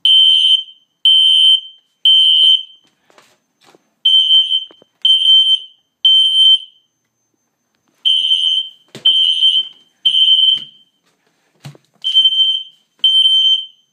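Fire alarm system horn sounding the temporal-3 evacuation pattern: three loud, high-pitched half-second blasts, then a short pause, repeating.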